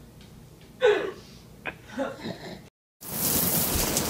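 A baby's few short vocal sounds and a small click, then after a sudden cut, steady rain falling, louder than anything before it.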